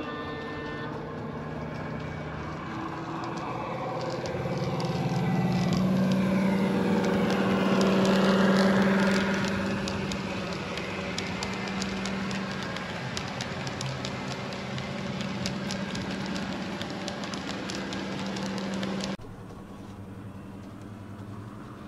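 Model train locomotive's DCC sound decoder playing a steady engine sound through its small speaker as the train passes, with rapid clicking of wheels on the track. It grows louder as the train comes by, then eases off. Near the end the sound cuts abruptly to a quieter steady engine hum.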